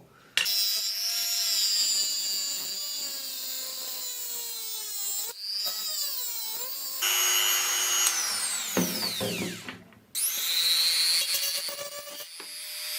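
Small high-speed rotary power tool cutting through a steel bicycle spoke, its motor whining at a pitch that drifts as it bites. It stops briefly about five seconds in, winds down with a falling whine near eight seconds, and starts up again about ten seconds in.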